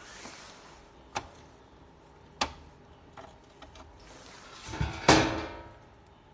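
Sharp handling clicks, two of them a little over a second apart, then a few small ticks and a louder clunk about five seconds in, as the power amplifier's test setup is switched over to its other channel.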